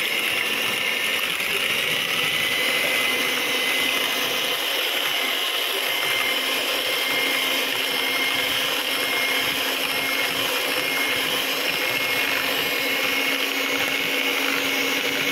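Electric hand mixer running steadily at one speed, its twin wire beaters whipping eggs to a foam in a stainless steel bowl.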